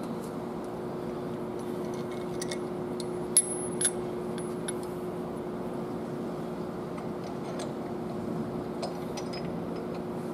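Light metallic clicks and clinks as timing gears and bolts are handled and dry-fitted on the engine's front gear train, with two sharper clinks about three and a half seconds in, over a steady background hum.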